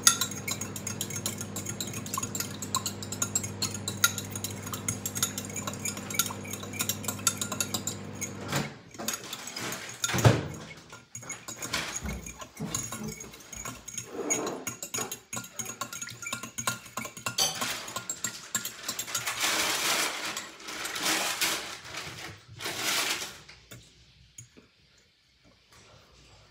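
Metal spoon stirring in a glass measuring jug of jelly and hot water, clinking and scraping against the glass in many quick small taps as the jelly is dissolved. A steady low hum runs under it for the first third and then stops, and one louder knock comes about ten seconds in.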